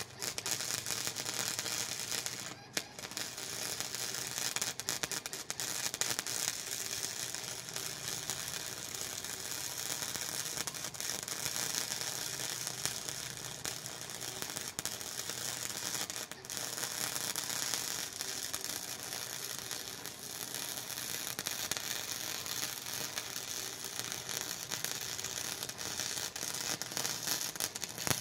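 Wire-feed welder's arc crackling and sizzling steadily as a weld bead is run, with a brief break in the arc about two and a half seconds in.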